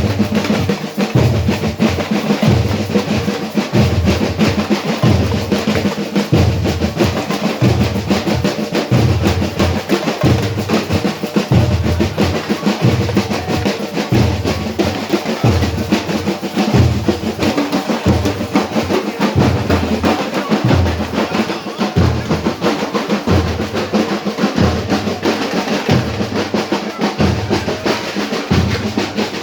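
Loud drum-led music: snare and other percussion over a deep bass drum keeping a steady beat, a little more than one hit a second.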